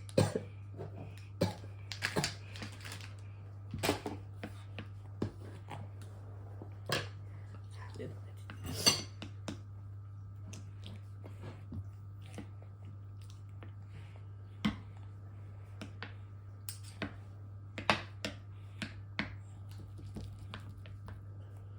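Scattered clinks and taps of tableware, spoons and bowls knocking on a table during a meal, over a steady low hum.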